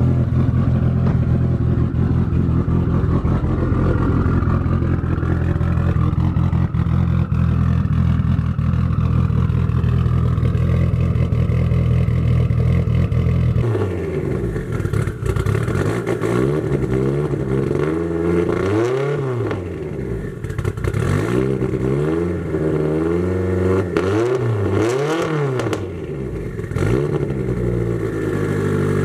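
Mitsubishi Lancer Evolution VIII's turbocharged 4G63 four-cylinder running through a Tomei titanium exhaust after a cold start: a steady high idle, then from about halfway through a series of throttle blips, each rising and falling in pitch.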